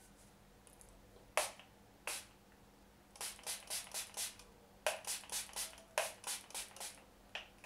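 Catrice Prime and Care pump-action face mist being spritzed onto the face: two single pumps, then two quick runs of short hissing sprays at about four a second, and one last spritz near the end.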